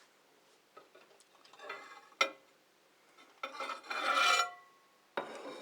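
A utensil scraping and clinking against a dish of food: a short scrape, a sharp clink, then a longer, louder squeaky scrape about three and a half seconds in.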